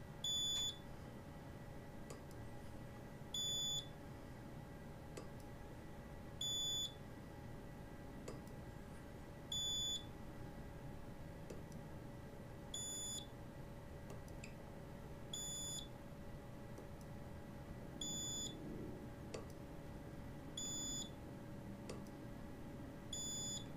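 Micro-Measurements Model 700 strain gauge spot welder beeping nine times, a short high beep about every three seconds, keeping pace with the spot welds being fired one by one around the edge of a weldable strain gauge's shim. Faint ticks fall between the beeps.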